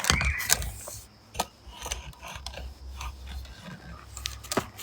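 Handling noise: irregular clicks, light knocks and rubbing as things are moved around, with a brief squeak near the start.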